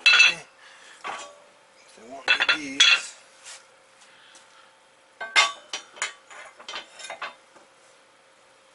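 Steel clanks and clinks as the heavy plates of a hydraulic shop press are shifted on its bed, loudest near the start and about two to three seconds in. A lighter run of metal clinks follows about five to seven seconds in as a brake rotor hub and a socket are set on the plates.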